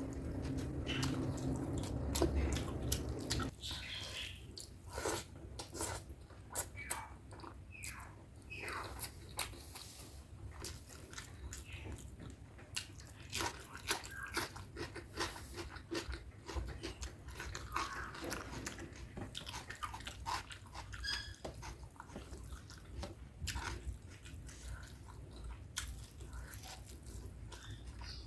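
Close-miked chewing and biting of chicken curry with rice: a steady run of short mouth clicks, with a louder, busier stretch in the first few seconds.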